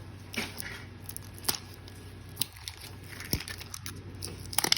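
Handling of a Mini Brands plastic capsule ball and its wrapping: a few separate small clicks, the sharpest about three and a half seconds in, with faint crinkling.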